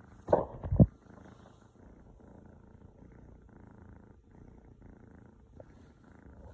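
A cat purring steadily, with a brief loud double burst of sound about half a second in.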